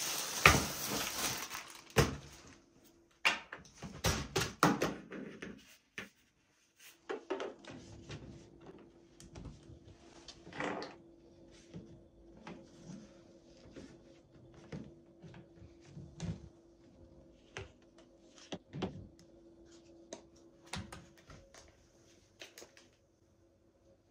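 Plastic clicks and knocks as the tiers of a black plastic shelf rack are handled and pushed onto its poles, scattered irregular taps, busier in the first few seconds. A faint steady hum sits underneath from about seven seconds in.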